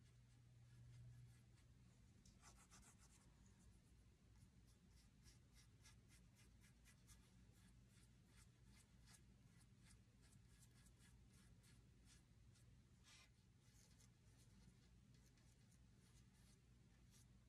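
Faint scratchy strokes of a paintbrush dry-brushing acrylic paint onto a wooden board, many short strokes in a row, over a low steady hum.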